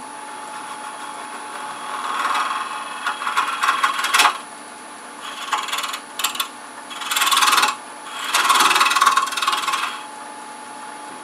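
Woodturning scraper cutting the end grain of a spinning wooden box bottom on a lathe, in several short scraping passes over the lathe's steady hum. These are light cuts to leave the bottom slightly concave.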